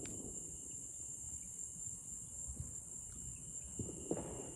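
Night insects such as crickets chirring in a steady high drone, with a second steady thin tone beneath it. A dull thump sounds about four seconds in.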